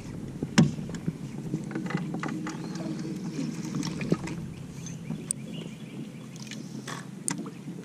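Fishing from a bass boat on the water: a steady low hum, with a sharp click about half a second in and scattered light clicks and taps after it.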